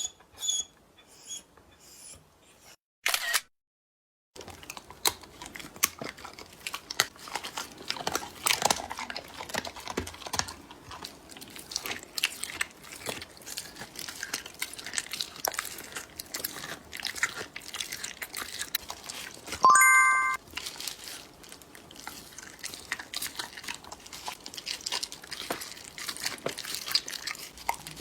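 A dog chewing and crunching its food: an irregular run of crunches, cracks and wet chews that sets in a few seconds in and keeps going. A short electronic chime sounds once about twenty seconds in.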